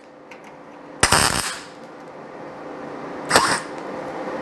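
MIG welder laying two short tack welds on a thin sheet-steel patch panel, each a brief burst of arc noise, about a second in and again near the end, over a steady low hum. The welder thinks the amperage is set a bit high for the sheet.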